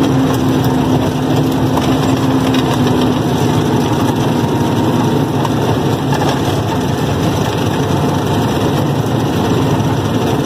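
Heavy truck's diesel engine running steadily, heard from inside the cab as the truck rolls slowly along a rutted dirt road. A steady droning tone in the engine sound fades out about three seconds in.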